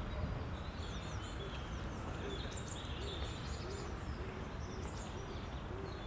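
Small birds chirping and twittering over a steady low background rumble, with a short low call repeating about twice a second from around two seconds in.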